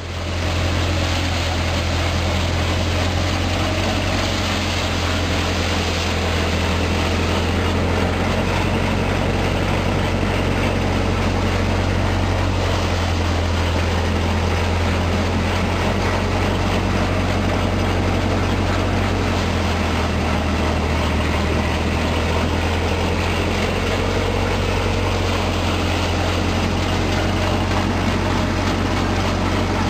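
Guru Hindustan 'Missile Model' paddy thresher running: a steady low machine hum under a dense whirring rattle, rising to full level within the first second and then holding even.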